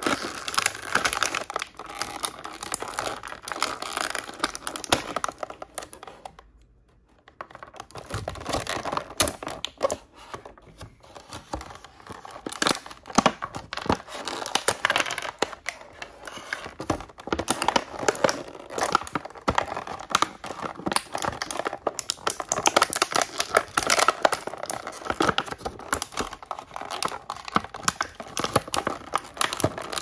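Toy blind-bag packaging crinkling and tearing as it is opened by hand: dense, irregular crackles, with a brief pause about six seconds in.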